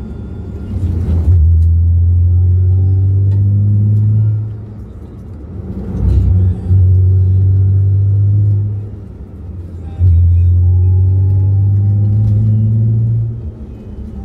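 Hyundai Tiburon V6 engine heard from inside the cabin, pulling hard through the bends three times with a deep drone whose pitch climbs during each pull. Between pulls it falls away briefly as the throttle eases off.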